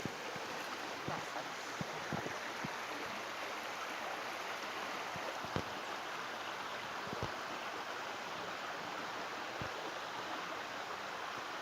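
Steady rush of clear water flowing over rocks in a creek, with a few faint low knocks now and then.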